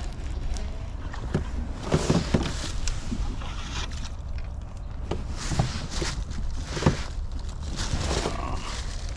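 A hooked bass being fought to the boat: several short splashes and handling noises over a steady low rumble.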